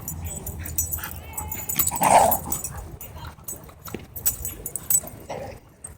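Dogs at play making short yelps and whines, with a brief wavering whine a little after one second and the loudest yelp at about two seconds.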